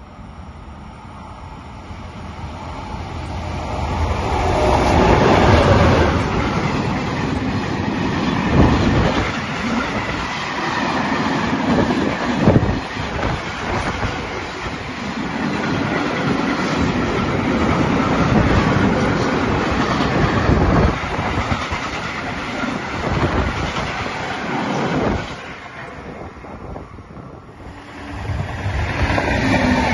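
Freight train running through a station at speed: a rising rush as it nears, then a long passage of wagons with clattering wheels and sharp knocks over rail joints, dying away about 25 seconds in. Near the end, another train is heard approaching.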